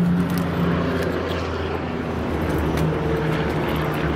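Semi-truck's diesel engine idling with a steady low hum.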